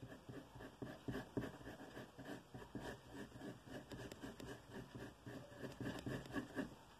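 Pencil scratching on drawing paper in quick, short repeated strokes, a few a second.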